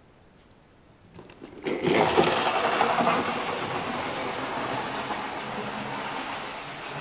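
A model railway locomotive starts running about two seconds in, its small electric motor giving a steady whirring that eases slightly as it goes on.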